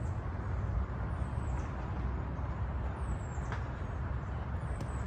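Steady low wind rumble on the microphone over an open field, with a few faint, high chirps that fall in pitch.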